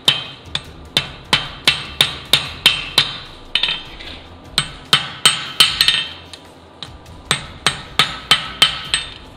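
Blacksmith's hand hammer striking a red-hot mild steel bar on an anvil, in runs of blows about three a second with short pauses between, each blow with a brief metallic ring. The blows are squaring up the bar's end, forging a slightly rectangular section back toward square.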